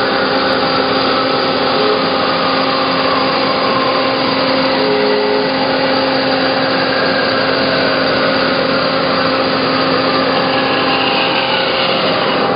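1995 Hyd-Mech H-16 automatic horizontal bandsaw running steadily through a cut, its drive and hydraulics making a loud, even machine hum with steady tones under the blade noise.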